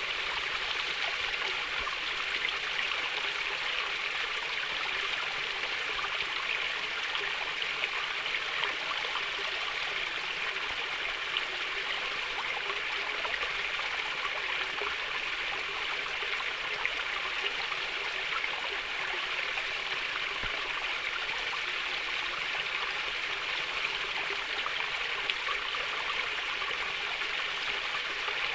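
Small stream of water flowing and babbling steadily over stones, a continuous, even trickling with no change in level.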